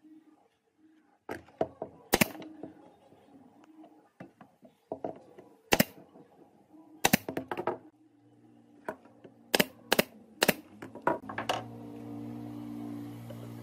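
A run of sharp, irregular knocks and taps of workshop work on wood, about a dozen, some loud. Near the end an electric power tool's motor starts and runs steadily.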